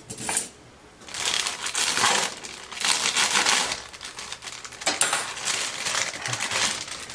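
Box of yellow cake mix being opened, its plastic inner bag crinkling in two long rustling stretches.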